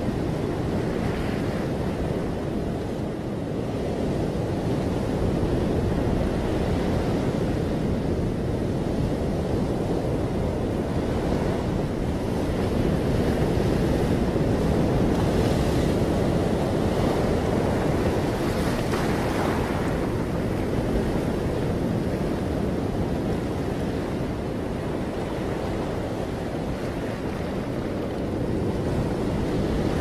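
Ocean surf: a continuous wash of breaking waves that slowly swells and eases, loudest around the middle.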